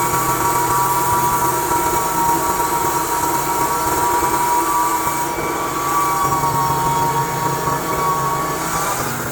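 Sawmill running under load as its blade cuts along the edges of a stack of about twenty 7/8-inch boards: a steady machine sound with a few held pitches, easing slightly near the end.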